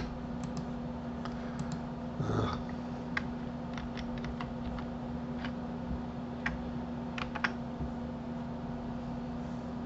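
Computer keyboard and mouse clicks, a dozen or so separate taps at irregular spacing, over a steady low hum.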